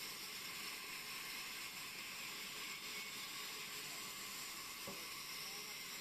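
Large band saw running, a steady high hiss with no change in pitch or level.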